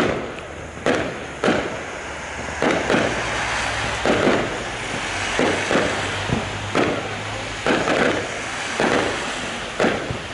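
Fireworks going off in a rapid barrage: sharp bangs roughly once or twice a second, each trailing an echo, over continuous crackling.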